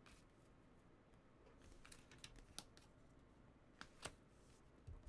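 Near silence with a few faint clicks and ticks from trading cards being handled.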